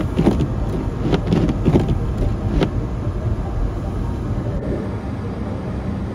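Strong storm wind, about 80–90 km/h, buffeting the car and the microphone as a loud, low rumble, with a few sharp knocks in the first three seconds. About four and a half seconds in, it changes abruptly to a steadier, quieter rumble.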